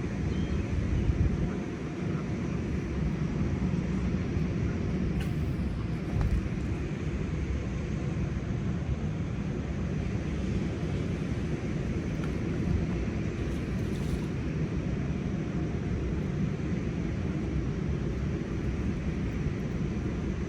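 Steady low rumble of outdoor background noise with no distinct events, only a couple of faint clicks.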